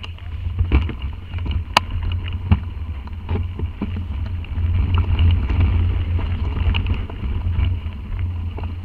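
Wind buffeting the microphone of a camera riding on a mountain bike descending a rough dirt trail, with knocks and rattles of the bike over the ground and a sharp click about two seconds in.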